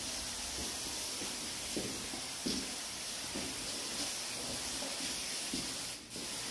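A steady hissing noise with a few faint, soft knocks.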